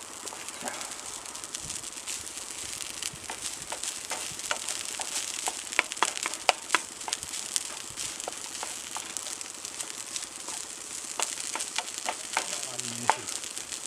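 Frozen curry sizzling in an unoiled frying pan: a steady hiss with many sharp pops and spits.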